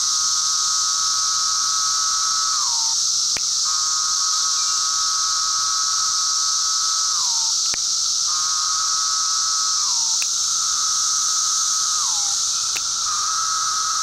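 Male 17-year periodical cicada calling: a held buzzing song that drops in pitch at the end of each phrase, repeated about five times. Each phrase is answered by a single sharp finger snap that imitates the female's wing-flick reply. A loud, steady chorus of many cicadas runs underneath.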